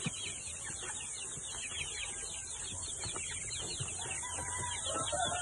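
A flock of young chickens peeping and chirping without a break, many quick, falling peeps overlapping. A lower, longer call joins in about four seconds in.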